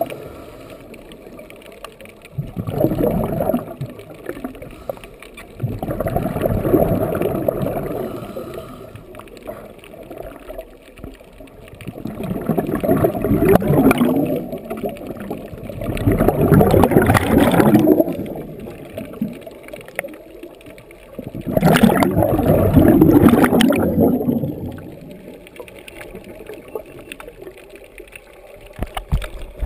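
Scuba diver's exhaled bubbles from a regulator underwater: a gurgling burst every few seconds, about five in all, with quieter stretches between breaths.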